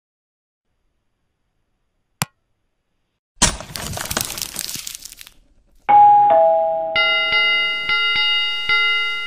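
Animation sound effects: a single sharp click, then a shattering crash a second later. After that comes a falling two-note ding-dong chime, followed by a bell ringing over and over, about twice a second.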